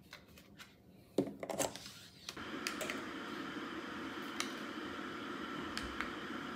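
A few light clicks and taps of handling, then about two seconds in a steady hum of background noise sets in, with occasional light clicks over it.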